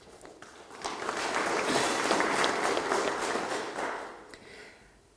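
Audience applauding: the clapping swells about a second in, holds, then fades away near the end.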